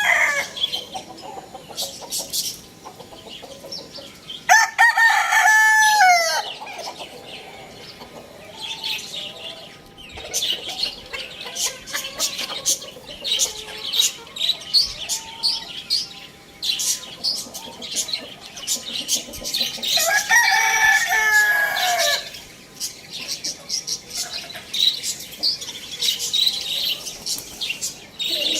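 Rooster crowing: two full crows, about five seconds in and again about twenty seconds in, each ending in a falling glide, with the tail of another at the very start. Between the crows, chickens cluck and short high chirps come thick and fast.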